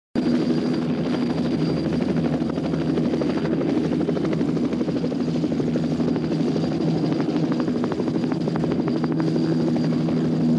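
Helicopter rotors and turbine engines running steadily at flight power, heard from aboard the aircraft as it lifts off and climbs away. A thin steady high whine sits over the low, even drone.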